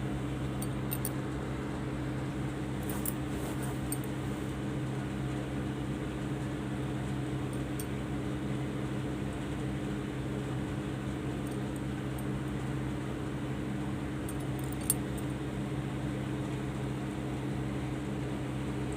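Steady low mechanical hum with a constant even hiss, broken by a few faint ticks and one sharp click about three-quarters of the way through.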